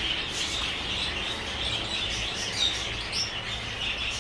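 Many caged pet birds chirping and twittering at once, a dense continuous chatter of high notes over a steady low hum.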